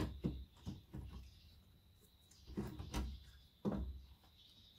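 Light knocks and clicks of hands handling plastic and metal parts of a rear-projection TV's tube assembly, several in the first second, then another group about halfway through.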